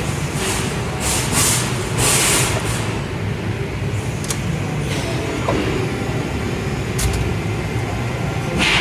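CNC press brake running: a steady low machine hum, with several short hissing bursts in the first three seconds and a few sharp clicks further on.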